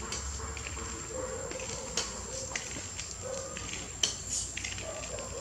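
Baby long-tailed macaque crying in short, faint, repeated calls. There are a couple of sharp clicks, about two and four seconds in.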